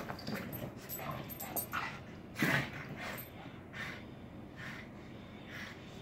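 Boston terriers making a series of short, sharp dog noises while scuffling with a cat. The loudest comes about two and a half seconds in, followed by fainter ones about a second apart.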